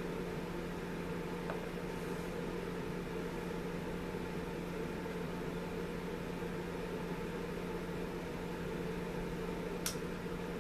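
Steady hum and hiss of room noise, with a faint click about a second and a half in and a sharper small click near the end.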